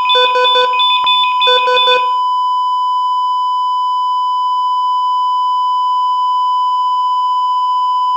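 ECG heart monitor alarm: fast clusters of beeps over a steady tone, which stop about two seconds in and leave one unbroken flat tone. The continuous flatline tone signals cardiac arrest.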